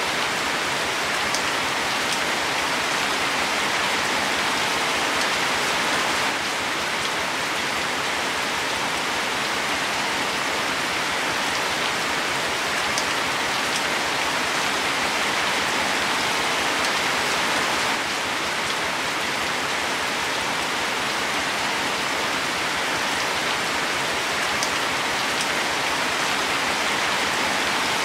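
Steady rain falling on leaves, an even hiss of rain with a few separate drop ticks now and then.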